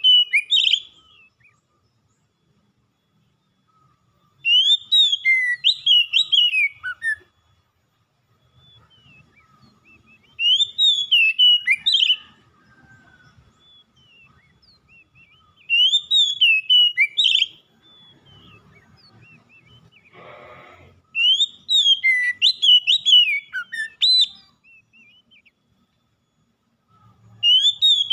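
Oriental magpie-robin (kacer) singing: a loud phrase of rapid, sweeping whistled notes about every six seconds, each phrase lasting about two seconds.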